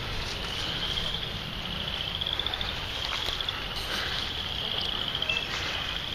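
High-pitched, rapidly pulsed trills from calling insects, one after another about once a second, over a steady low rumble.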